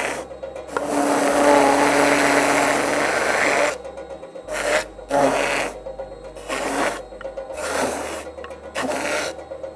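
Larick 260 profile sander's spinning abrasive flap drum scuffing against the edge of a CNC-cut wooden board: one long pass, then several short strokes. The flaps are sanding off the thin onion-skin left by the router.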